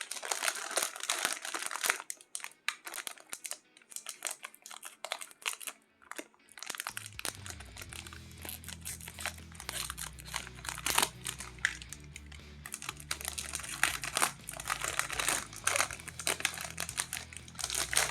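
Plastic biscuit wrapper crinkling in irregular rustles as it is handled and opened. Low background music comes in about seven seconds in.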